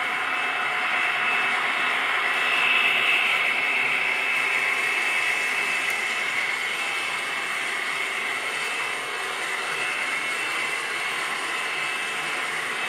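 HO-scale model freight train running past on the track: a steady whirring of metal wheels on rail and locomotive motors with a high whine, swelling a little about three seconds in.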